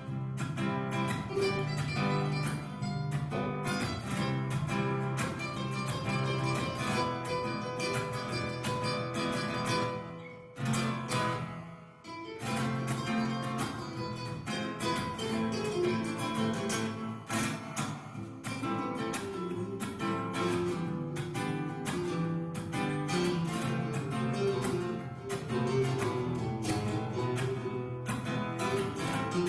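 Background music of strummed and plucked acoustic guitar in a flamenco-like style, with a brief drop in level about two-thirds of the way through.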